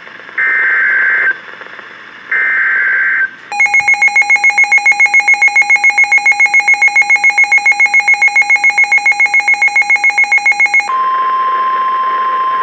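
NOAA Weather Radio severe thunderstorm warning alert. Two short screechy data bursts of the digital alert header come first. Then about seven seconds of rapid electronic beeping, about seven beeps a second, and about eleven seconds in the steady single-pitch warning alarm tone starts.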